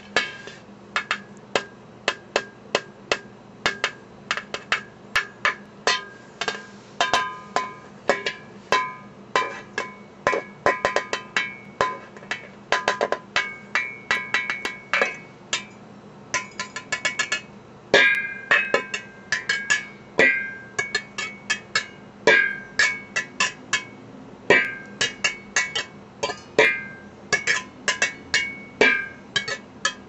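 Metal pot lid struck over and over with a wire whisk: an irregular patter of metallic clinks, each ringing briefly, with quick runs of rapid strikes now and then.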